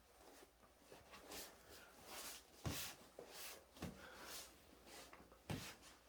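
Faint rustling and scratching with three sharp clicks.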